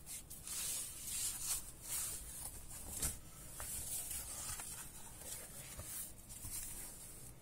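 Stiff cardboard pages of a worn folding book being handled and folded shut by hand: papery rubbing and scraping, with one sharp tap about three seconds in.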